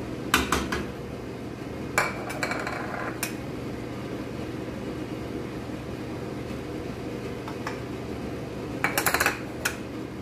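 Scattered clinks and knocks of a spoon and small ceramic bowls against an aluminium cooking pot as paste and spices are tipped in, ending in a quick run of taps near the end. A steady low hum runs underneath.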